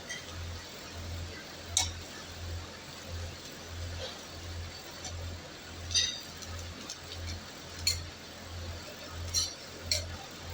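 Metal utensils clinking against a dosa griddle a handful of times, a few seconds apart, over a low hum that pulses about twice a second.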